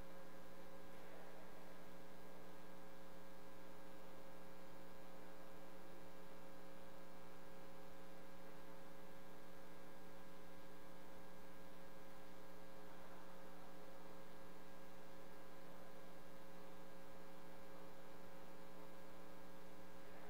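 Steady electrical hum, several low steady tones over a faint hiss, unchanging throughout.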